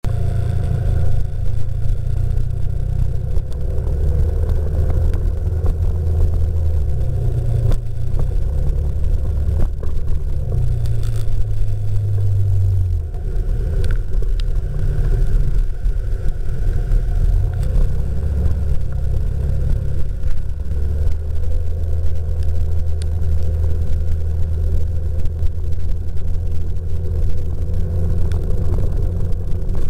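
Strong typhoon wind, heard as a loud, deep rumble that swells and eases with the gusts.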